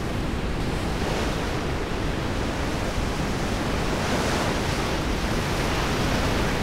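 Steady roar of the Yarlung Tsangpo's big whitewater rapids: heavy churning water running unbroken throughout.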